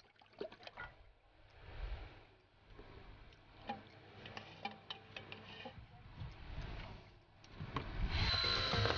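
Thick liquid poured from a metal can into a plastic bucket, a soft pouring noise with small knocks and clicks of the can against the bucket. Near the end a louder steady sound with a high whine sets in.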